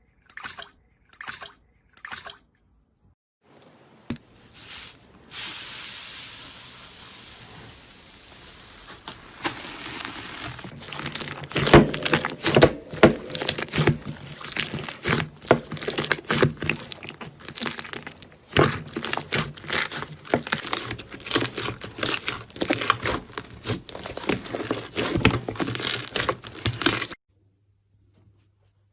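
Slime being worked by hand: a few soft sticky sounds, then a long run of dense, irregular wet crackling and popping that stops suddenly near the end.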